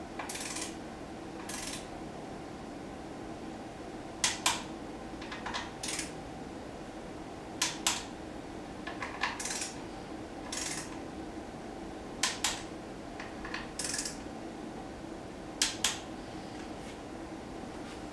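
Hand ratchet turning bolts on an engine being fitted with its oil scavenge pumps: short bursts of ratchet clicking, and every three to four seconds a pair of sharp metal clinks.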